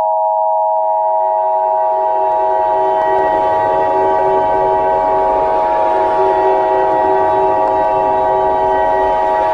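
A steady emergency-alert alarm sounding continuously as one unwavering chord of several horn-like tones that never rises or falls in pitch. A rushing hiss builds up behind it over the first couple of seconds.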